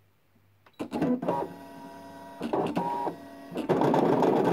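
Brother ScanNCut electronic cutting machine starting a job: a few clicks about a second in, then two stretches of steady motor whine as the carriage and mat move into position, and near the end a louder, steady whirr as the cutting head begins kiss-cutting the design into stamper's roll on card.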